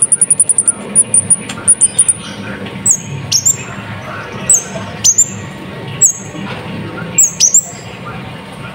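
Olive-backed sunbird (kolibri ninja) singing. A fast, very high trill ends about two seconds in. It is followed by a string of sharp, high, steeply falling call notes about once a second, some given in pairs.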